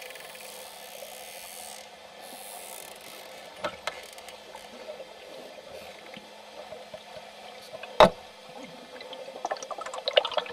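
Bottlenose dolphins clicking underwater over a steady water hiss: a few scattered clicks, one sharp loud click about eight seconds in, and a rapid run of clicks near the end.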